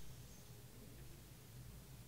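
Near silence: a faint steady low hum of room tone.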